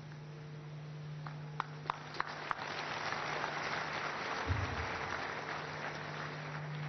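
Congregation applauding: a few separate claps, then applause building about two seconds in and holding steady.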